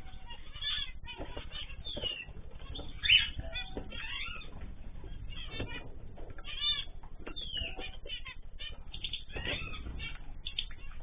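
A mixed group of cage birds calling and chirping over one another in quick, overlapping short calls, with one louder call about three seconds in.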